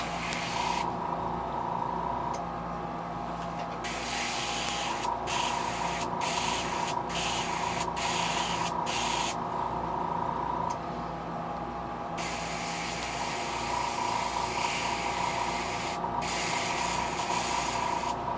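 Airbrush spraying paint onto a fishing lure in hissing bursts: a short spray at the start, several quick trigger presses between about 4 and 9 seconds, then a longer spray from about 12 seconds with a brief break near 16 seconds. A steady hum runs underneath.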